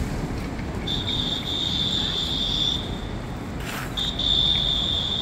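A high, thin, steady buzz comes in two stretches, one of about two seconds and a second starting about four seconds in, over a low, constant background rumble. Between the two stretches there is a short burst of noise.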